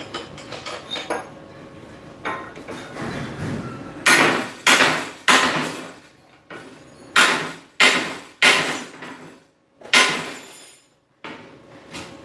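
Hammer blows on metal: three strikes about half a second apart, a pause, three more, then a single strike, each with a short fading ring.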